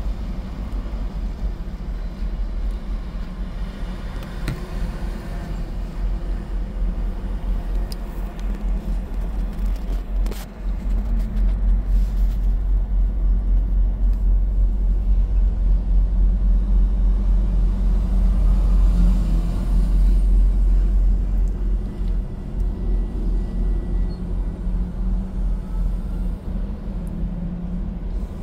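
Low engine rumble of semi-trucks moving past close by, heard from inside a car's cabin; it grows louder for several seconds in the middle and then eases off.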